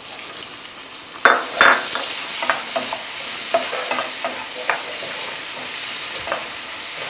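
Freshly added chopped onions sizzling in hot peanut oil in a nonstick kadai while being stirred with a wooden spatula. The sizzle grows louder about a second in, when the stirring starts, with short knocks and scrapes of the spatula against the pan.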